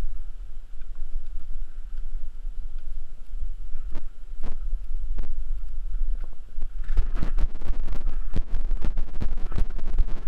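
Wind rumbling on the microphone while a mountain bike rides down a rough dirt trail, its frame and tyres knocking over the bumps. The knocks are scattered at first and turn into a dense rattle about seven seconds in.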